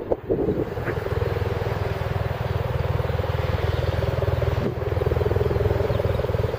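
An engine running steadily, a low pulsing drone with no rise or fall.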